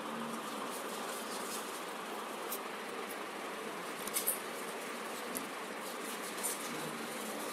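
Steady background hiss with a faint hum, and a few short clicks, two of them close together about four seconds in.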